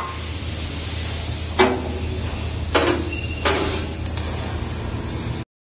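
Three sharp metal clanks with brief ringing, spaced about a second apart, over a steady low machinery hum in a metal fabrication shop. The sound cuts off abruptly near the end.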